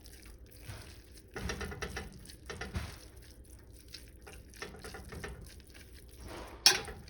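A spoon mixing corned beef into cooked cabbage in a pot: irregular wet squelching and scraping strokes, with one sharp clank of the utensil against the pot near the end.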